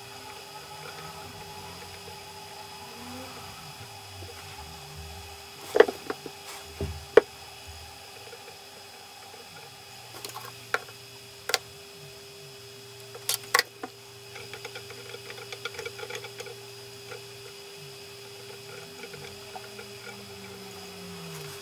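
Small clicks and taps from hand-soldering fine wire onto a chip's pins on a laptop memory module: a few sharp ticks scattered through, then a run of quick small ticks in the middle, over a steady low hum.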